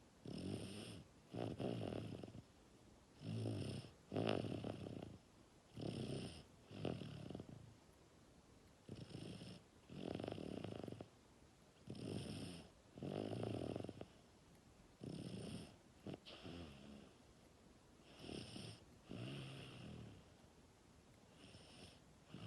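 Snoring in a slow, regular rhythm: about eight breaths, each heard as a pair of rough sounds, breathing in and then out, roughly every two and a half to three seconds, with short quiet gaps between.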